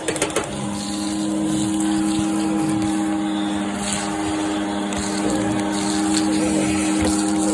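Vacuum cleaner's motor running steadily with a constant hum and rushing air. There are a few knocks at the very start, and a lower hum joins about half a second in.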